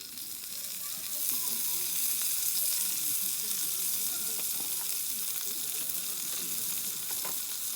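Food sizzling as it fries in a hot pan: the sizzle comes in suddenly, builds over the first second, holds steady and cuts off suddenly at the end.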